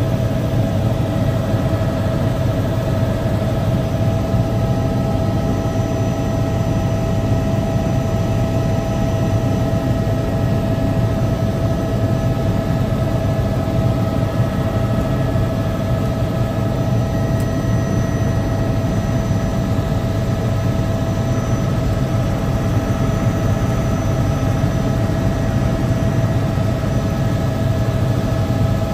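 Helicopter engine and rotor noise heard on board in flight: a loud, steady rumble with a constant whine that does not change.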